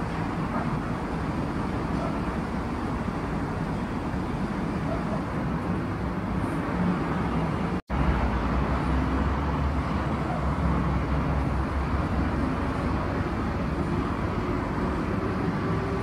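Steady distant city traffic noise. The sound cuts out for an instant about eight seconds in, and after that a deep low rumble is stronger.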